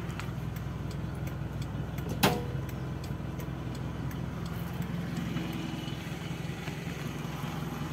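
1995 Daihatsu Feroza's 1.6-litre four-cylinder engine idling smoothly and steadily, with a single sharp click about two seconds in.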